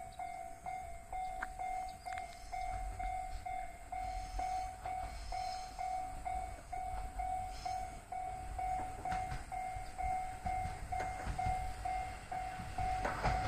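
Railway level-crossing warning bell ringing in a steady, even pulse of about two and a half rings a second. The low rumble of an approaching train grows underneath and is loudest near the end.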